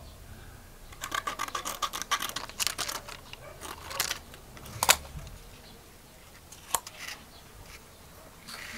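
Scissors cutting a thin, clear vacuum-formed plastic stencil sheet, with the sheet crackling as it is handled: a rapid run of snips from about a second in, a sharp snip near the fifth second, then a few scattered snips and crackles.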